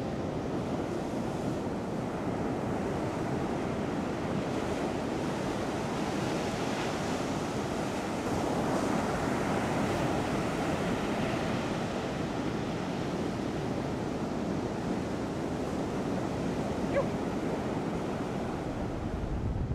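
Surf breaking and washing onto a beach: a steady rush of noise that swells a little about halfway through.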